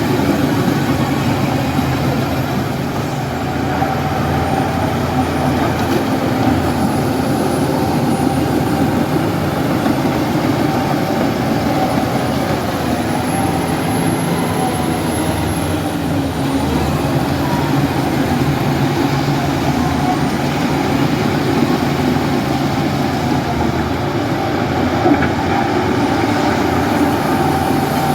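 A bulldozer's heavy diesel engine running steadily, with a faint high whistle above the engine note.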